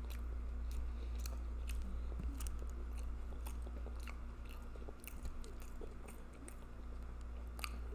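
Close-miked chewing and lip smacking on a seafood boil: a steady run of short, wet clicks, over a constant low hum.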